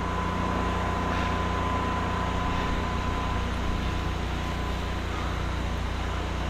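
Steady hiss of soft-wash solution spraying from a pressure washing gun over the constant low drone of a running pump, with a faint steady high tone.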